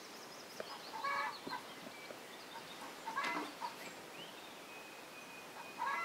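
Hens outside calling repeatedly, heard faintly through an open window, with louder calls about a second in, about three seconds in and near the end. The hens are unsettled because their nesting routine has been upset by the loss of their hutch.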